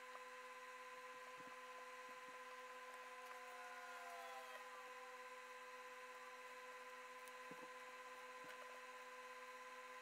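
Near silence: room tone with a faint steady electrical hum and a few very faint soft ticks.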